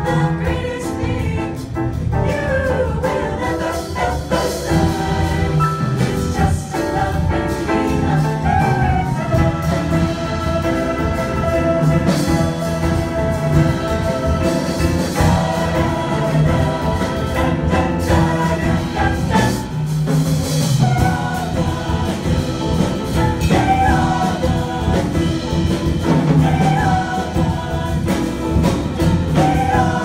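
Vocal jazz choir singing in harmony through handheld microphones.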